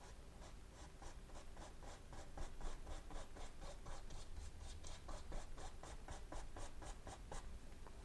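Paintbrush dabbing oil paint onto a canvas in short, even strokes, about four a second, faint.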